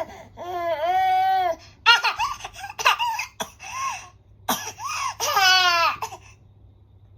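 A 9-month-old baby laughing hard, in high-pitched squeals and short bursts, with a sudden sharp burst about two seconds in.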